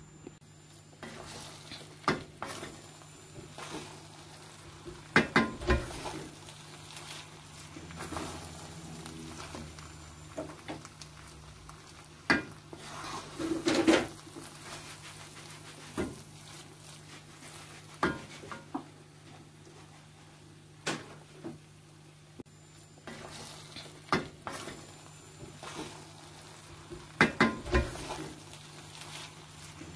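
A wooden spatula stirring and turning thick, steaming jollof rice in a heavy enamelled pot, scraping the bottom and knocking against the rim every few seconds, over a faint sizzle from the hot pan.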